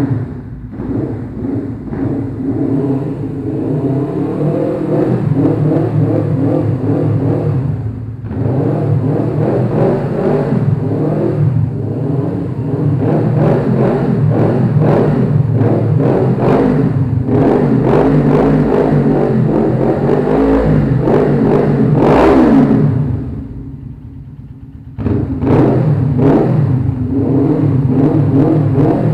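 Suzuki GS 500 motorcycle's parallel-twin engine running after start-up and being revved repeatedly. It climbs to its highest rev about three-quarters of the way through, falls back to a lower idle for a couple of seconds, then revs up again.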